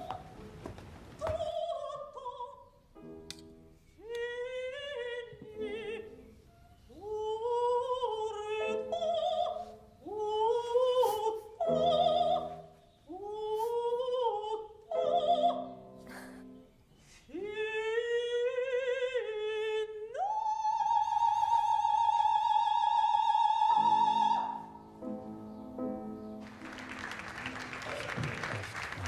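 A soprano singing an operatic song with a wide vibrato, phrase by phrase, rising to one long high note held for about four seconds. Applause breaks out near the end.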